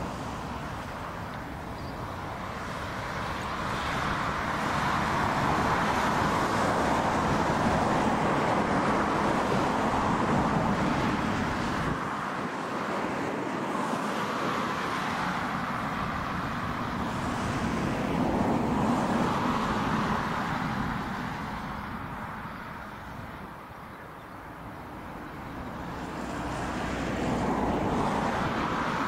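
Rushing vehicle noise that swells and fades several times, loudest from about four to twelve seconds in and dipping shortly before the end.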